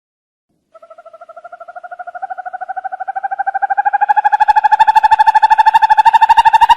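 An owl calling a long, rapid trill of about ten notes a second, starting about a second in, rising slightly in pitch and growing steadily louder.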